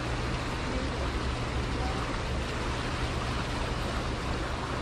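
Steady rushing of churning, turbulent white water, with a constant low hum beneath it.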